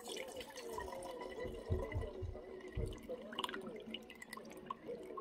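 Liquid poured from a ceramic bowl through a plastic funnel into a glass bottle, trickling and dripping unevenly, with a few low bumps about two to three seconds in.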